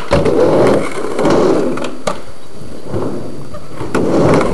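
Skateboard wheels rolling on a skatepark ramp, the rumble swelling and fading about four times as the board runs up and down the transition. A few sharp clacks from the board are mixed in.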